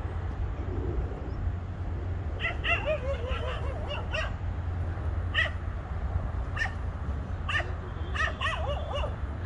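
A series of short, high-pitched animal calls, repeating every second or so from about two seconds in, over a steady low hum.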